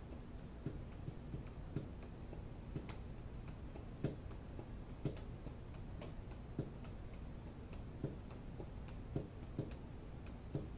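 Faint, irregular sharp clicks, about one or two a second and a few louder than the rest, over a low steady hum.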